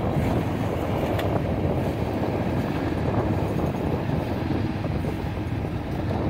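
Motorcycle riding along a road: a steady rumble of engine and road noise, with wind on the microphone.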